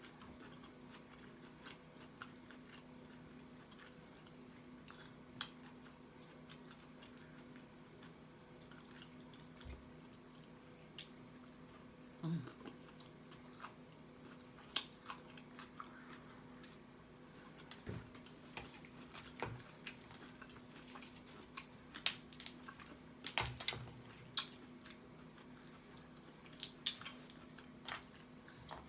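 Close-up mouth sounds of someone eating lobster and crab: chewing with wet lip smacks and scattered short clicks, busier near the end. A faint steady hum sits underneath.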